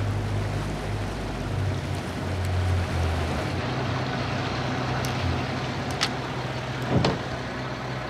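Small boat's outboard motor running with a steady low hum. A few sharp knocks come in the second half.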